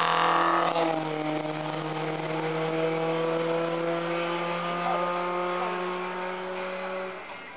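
Race car engine at full throttle as a hatchback passes close by. About a second in it shifts up a gear, then pulls away with its pitch climbing steadily as it fades into the distance.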